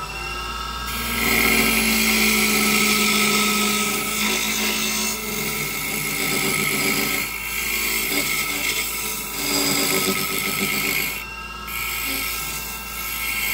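WEN wood lathe running with a skew chisel cutting a spinning wooden blank: a steady motor whine under the hiss of the cut, which starts about a second in and eases off briefly a few times as the tool is lifted and pushed in again.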